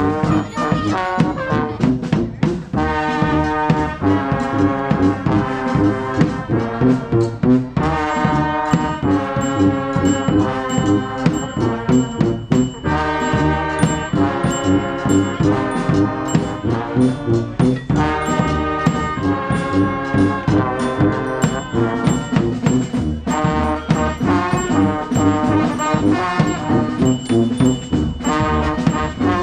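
Street brass band playing a lively tune, with trombones and trumpets carrying the melody over a steady drum beat.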